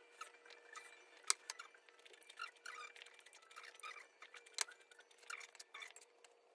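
Faint eating sounds at a meal: wooden chopsticks clicking and tapping against ceramic bowls and dishes, with many small ticks and two sharper clicks, one about a second in and one about four and a half seconds in. A faint steady hum runs underneath.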